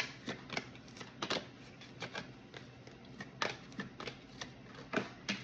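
Oracle cards being handled and shuffled: a string of light, irregular clicks and snaps.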